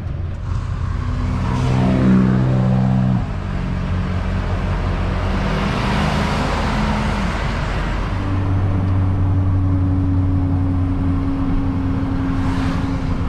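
Truck engine heard from inside the cab as it pulls away and accelerates, with rising engine tones that drop suddenly about three seconds in as it shifts. A vehicle rushes past about six seconds in, and from about eight seconds the engine settles into a steady cruising drone with road noise.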